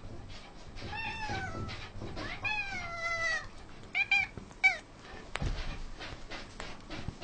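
Domestic cats meowing to be fed: two longer meows that fall in pitch, then two short, sharp meows about four seconds in. A few clicks and a low thump follow.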